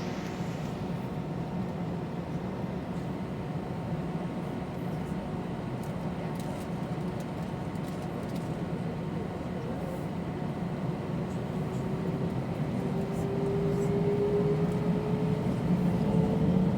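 Steady jet engine and cabin hum inside an Airbus A319 lined up for takeoff, then the engines spool up to takeoff thrust: a slowly rising whine starts about two-thirds of the way in and the noise grows louder toward the end.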